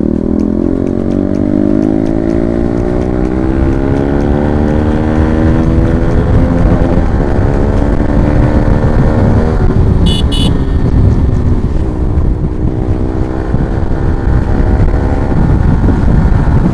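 Motorcycle engine pulling hard under acceleration, its note climbing steadily for about ten seconds, then climbing again a little later, with wind rumbling on the microphone. A short high beep about ten seconds in.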